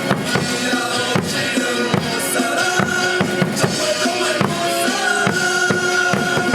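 Loud cheer music with a steady drum beat, played over stadium loudspeakers.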